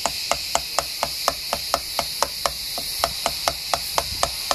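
Small plastic toy hammer tapping the plastic hexagon tiles of a Son Kale tile-breaking game, rapid light taps about four a second, over a steady hiss.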